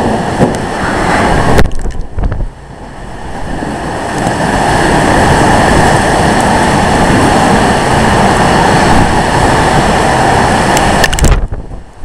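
Microburst wind gusting hard with wind-driven rain, buffeting the microphone in a dense, steady rush. The rush drops briefly about two seconds in, surges back, and falls away again near the end.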